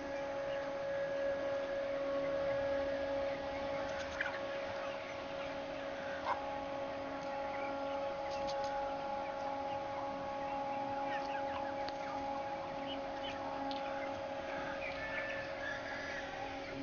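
Scattered short clucks and calls from a flock of Australorp and Rhode Island Red chickens, over a steady mechanical hum of several pitches that is the loudest thing heard.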